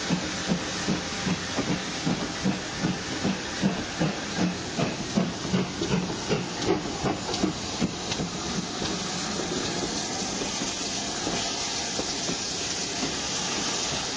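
Steam locomotive hauling a train slowly past, its exhaust beats coming about two to three a second over a constant hiss of steam. About eight seconds in, the beats fade into the steady sound of the coaches rolling by.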